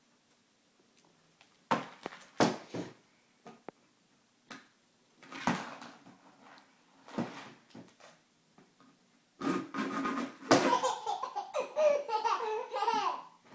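A young child laughing and giggling in short bursts, with noisy sputters from a drinking straw in between; the laughter grows longer and livelier near the end.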